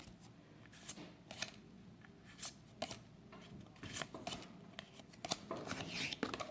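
Faint flicks and slides of Yu-Gi-Oh trading cards being handled one by one, in scattered separate clicks, with a denser rustle near the end.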